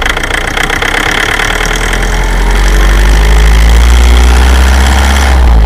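Toyota Avensis 1AD-FTV 2.0-litre four-cylinder turbodiesel pulling under load at low revs with a knock, the sign of the engine-knocking fault the owner is showing. It grows louder and rises slightly in pitch about two seconds in.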